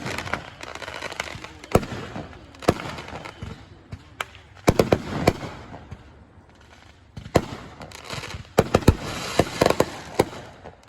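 Aerial fireworks going off: repeated sharp bangs, some in quick clusters, with crackling between them.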